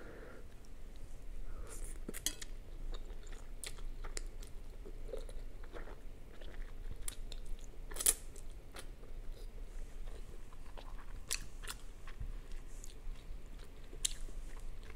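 A person chewing a mouthful of spicy instant ramen noodles, with many small wet clicks and smacks of the mouth. A sharper slurp comes as she draws in noodles about eight seconds in.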